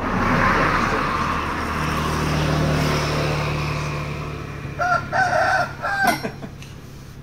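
A rooster crowing about five seconds in, in a few short pitched phrases. Before it, a loud, steady engine-like noise with a low hum fades slowly, as from a passing vehicle.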